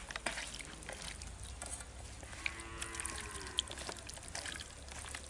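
A cow moos once, about halfway through, a single lowing call lasting about a second. Underneath, a hand squelches and clicks as it mixes chicken pieces in a wet, oily spice-and-egg marinade in a steel plate.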